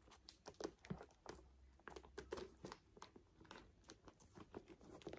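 Near silence with faint, scattered rustles and small clicks as a quilted caviar-leather handbag and its tissue paper wrapping are handled.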